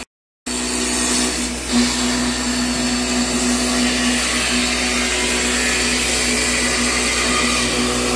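CNC milling machine spindle driving an end mill through a wooden casting-pattern block, cutting steadily: a constant motor tone under a dense hiss of wood chips being cut. It starts after a brief half-second gap.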